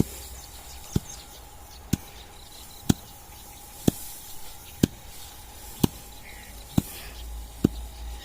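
Hand work on wheat stalks in the field: a short, sharp stroke about once a second in a steady, even rhythm.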